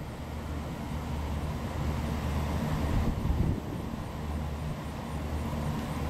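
Low, uneven outdoor background rumble with no siren tone yet.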